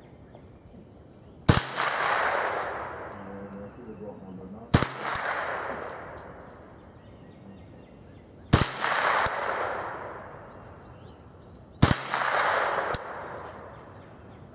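Four single shots from a Ruger 10/22 .22LR semi-automatic rifle, spaced about three to four seconds apart, each followed by a long echo that fades over a second or so.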